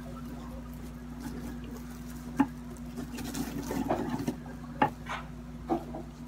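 Clear plastic bread wrapper crinkling as hands pull bread rolls out of it, busiest midway, with three sharp clicks along the way.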